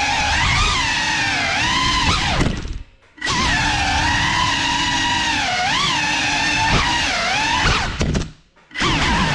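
GEPRC Cinelog 35 cinewhoop drone's motors and ducted propellers whining in flight, the pitch rising and falling as the throttle changes. Twice the sound drops away almost completely for about half a second, about a third of the way in and near the end.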